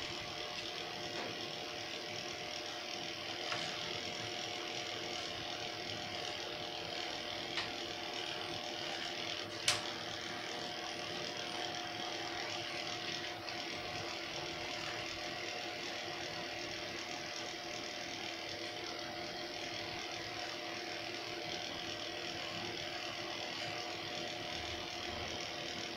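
Corded electric pet clipper running with a steady hum as it shaves a small dog's coat. A single sharp click about ten seconds in.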